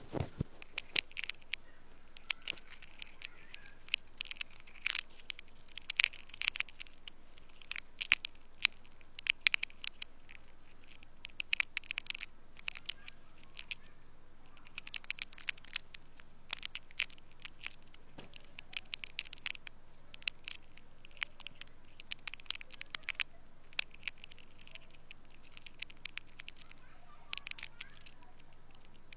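Close-miked ear-cleaning sounds: irregular soft crackles, clicks and scratches at the opening of the ear canal as it is worked with a tool.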